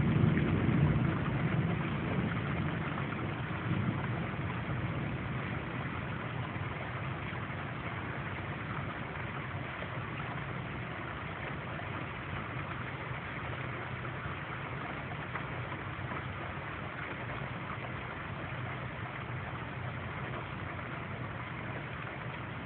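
Thunderstorm: a low rumble, loudest about a second in and dying away over the next several seconds, over a steady rushing noise.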